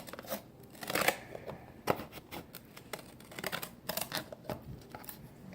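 Scissors cutting, a series of irregular snips and clicks as a piece is cut away.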